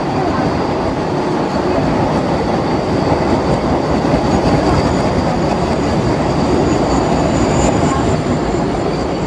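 An air-conditioned MEMU electric train rolling past along the platform: a steady, loud rumble of wheels on rail with a faint high whine over it.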